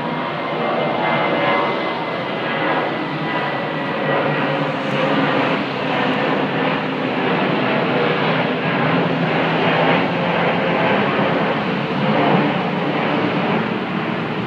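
Jet airliner climbing out after takeoff: a steady, loud jet engine rumble, with a faint high whine that drops slightly in pitch over the first few seconds.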